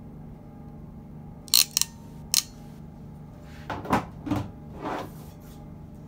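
Steel jaws of a hand crimping tool for DuPont connectors clicking: three sharp metallic clicks in quick succession, followed a couple of seconds later by duller knocks and rustles as the tool is handled.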